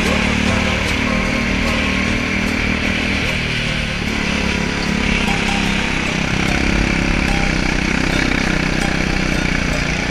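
Go-kart engine running hard, heard from the driver's seat, its pitch dropping briefly about four seconds in as the kart slows for a corner and then rising and falling again as it accelerates.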